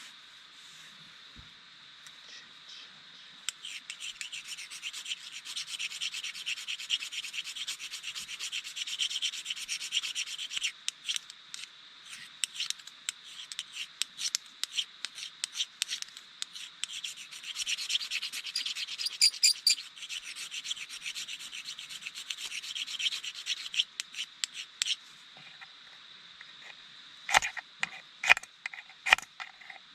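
Fast, continuous rasping and scraping strokes for about twenty seconds, stopping a few seconds before the end, followed by a few sharp clicks or taps. A faint steady high tone runs underneath.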